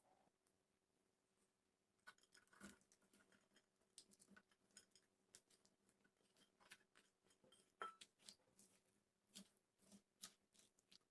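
Near silence with faint, irregular clicks and taps, starting about two seconds in.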